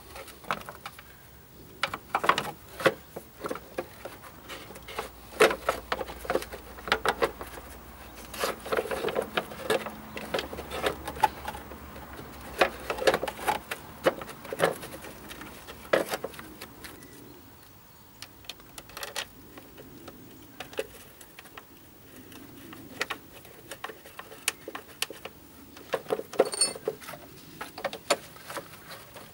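Irregular clicks, taps and light knocks of hand work as the plastic auxiliary drive belt cover is handled and fitted around the crankshaft pulley, with a quieter stretch in the middle.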